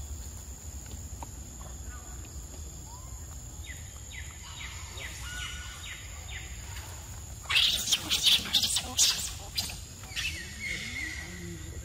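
Outdoor forest ambience with a bird giving a quick run of short falling chirps, and a steady high-pitched hum in the background. About halfway through comes a couple of seconds of loud, crackly rustling close to the microphone, the loudest sound here. The chirps return near the end.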